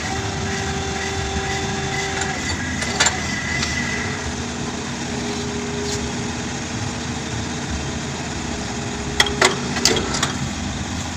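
Komatsu PC 200 excavator's diesel engine running steadily while it powers the pile-driving rig, with a few held tones over the drone. Sharp knocks come about three seconds in and again as a quick cluster near the end.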